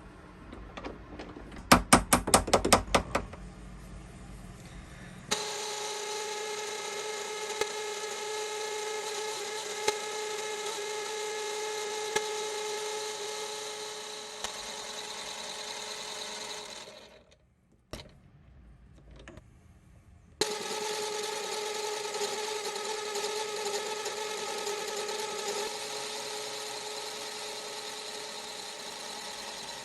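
A rapid rattle of sharp clicks, then an electric power tool running steadily with a pitched whine. It switches on abruptly, stops for a few seconds partway and starts again.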